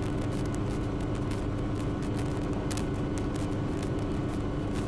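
Schweizer 300 piston helicopter's engine and rotor drone in cruise, heard in the cockpit, steady, with a constant low hum.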